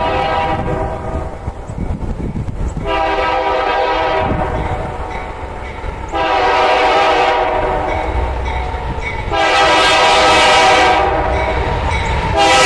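Freight locomotive's multi-note air horn sounding a series of long blasts, about three seconds apart, with a short blast at the very end, growing louder as the train approaches; this is the warning for a road grade crossing. A low diesel rumble runs underneath.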